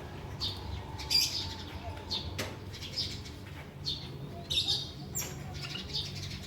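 Caged female canary and male white-headed munia making short high chirps every second or so, with a sharp tap about two and a half seconds in, over a faint low hum.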